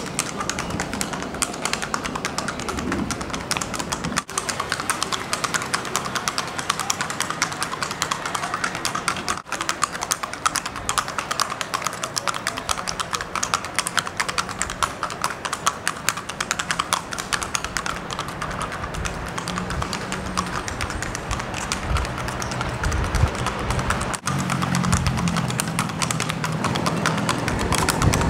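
A Paso Fino mare's hooves striking a stone-paved path in rapid, even hoofbeats, keeping a steady four-beat gait.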